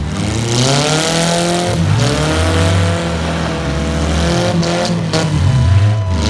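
Several demolition derby car engines revving hard, their pitch rising and falling over and over as the cars push against each other. A couple of sharp knocks come about four and a half and five seconds in.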